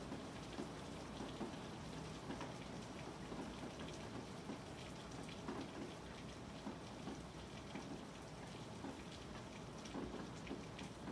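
Steady rain falling, heard from inside a room, with many small irregular drop taps.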